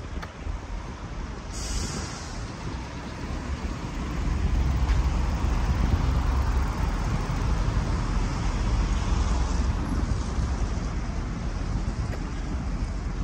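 Road traffic: a steady rumble of engines and tyres that grows louder about four seconds in, with a short hiss about two seconds in.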